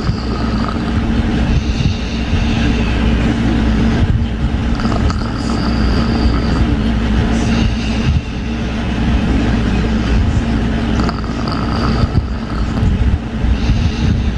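Someone asleep and snoring softly, a faint whistling breath coming every few seconds, over a loud steady low hum.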